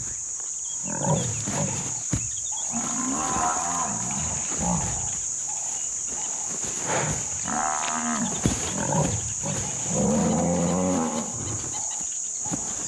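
African buffalo bulls bellowing and grunting in several drawn-out calls while fighting; one call near the middle has a fast rattle. A steady high drone of insects runs underneath.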